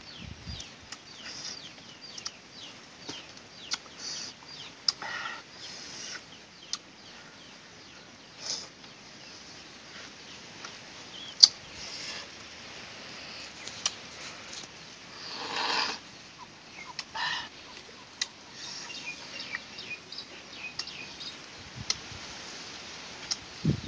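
Chopsticks clicking against a ceramic bowl during a meal, in short scattered ticks, with chickens clucking and small birds chirping in the background.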